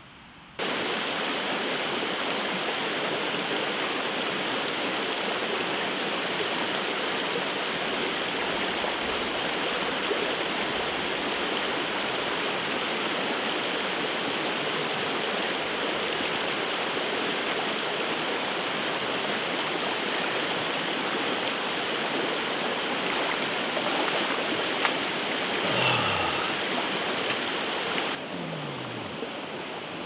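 Shallow stream flowing over stones: a steady rush of water that starts suddenly just after the beginning and drops quieter about two seconds before the end.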